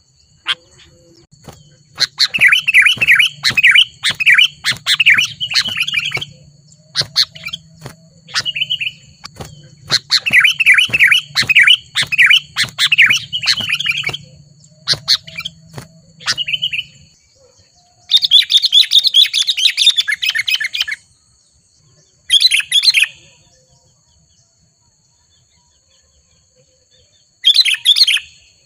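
Sooty-headed bulbul (kutilang) calling in loud bursts of rapid, bubbling chattering phrases, several bouts separated by short pauses, the last ones shorter and farther apart, in an agitated, rival-challenging calling display.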